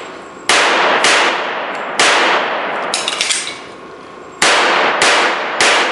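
Pistol shots from a .45 ACP pistol fired in a large indoor hall, each crack followed by a long echoing decay. Three shots come in the first two seconds and three more about half a second apart near the end, with a fainter crack and brief ringing about three seconds in.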